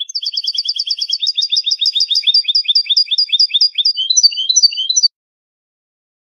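European goldfinch singing a Malaga-style competition song: a fast run of repeated two-part high notes, about seven a second, for some four seconds, then a few varied notes. The song stops about five seconds in.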